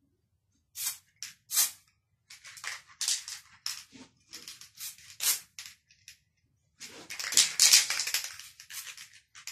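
Marble-effect spray paint hissing from a spray can in a string of short spritzes over the glass, then one longer spray of over a second about seven seconds in.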